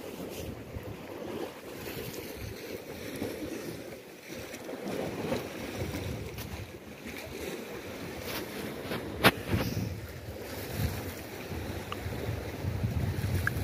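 Sea waves washing against the rocks at the foot of the cliff, with wind buffeting the microphone, heavier near the end. A single sharp click about nine seconds in.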